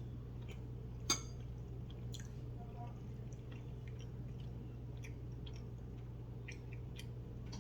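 Quiet eating sounds: faint chewing and small scattered clicks, one a little louder about a second in, over a steady low hum.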